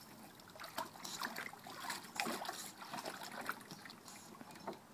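Water trickling and lightly splashing in a shallow kiddie pool, with scattered small irregular splashes as an English bulldog puppy moves about in it.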